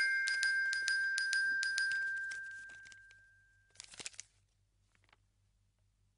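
Glockenspiel-like chime music ringing out with a few light strikes and one held high note, fading away over the first three seconds or so. About four seconds in comes a brief crinkle of paper as a receipt is handled, then near silence.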